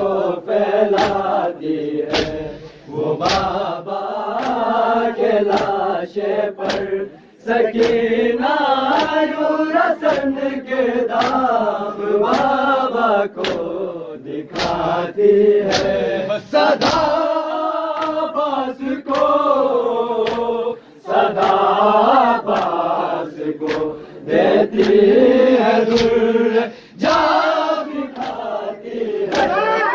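A crowd of young men chanting a Shia noha together in a mourning lament, with a steady beat of sharp slaps from chest-beating (matam) keeping time.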